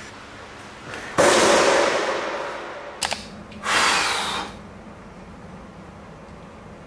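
Two sudden bursts of hissing noise, the first about a second and a half long and the second about a second, with two sharp clicks between them.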